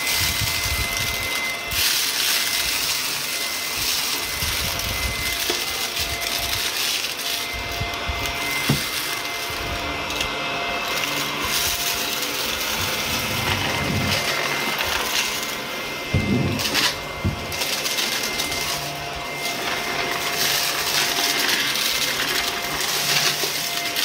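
Shark upright vacuum cleaner running on carpet, its motor holding a steady whine over the rush of suction, with a few sharp crackles and ticks as crumbs and grit are sucked up.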